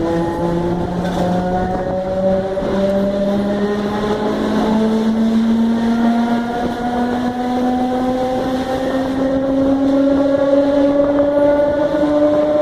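Traction motors of a CPTM 4400-series electric commuter train growling under power as it accelerates away from a station, heard from on board. A stack of tones climbs slowly in pitch, in small steps, as the train picks up speed.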